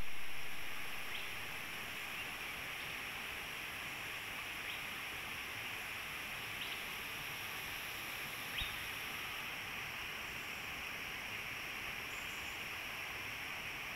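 Steady outdoor forest ambience: an even hiss with a constant high-pitched drone, broken by a few faint clicks, the clearest about eight and a half seconds in.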